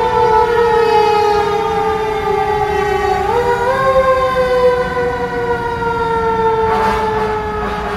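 Fire engine siren wailing loudly with a slowly falling pitch; about three seconds in it winds back up briefly, then falls slowly again.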